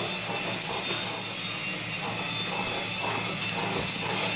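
Rustling and scuffling of a dog being played with on a carpeted floor, with the camera being handled, over a steady low hum and a few faint ticks.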